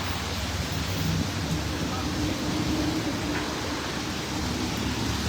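Steady hiss of rain and wet-street traffic, with a low hum of vehicle engines underneath and a faint held engine tone in the middle.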